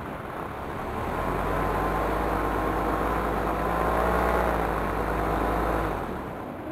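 An engine's pitched running note swells in about a second in, holds for several seconds with its pitch wavering slightly, then fades away, over a steady rushing noise.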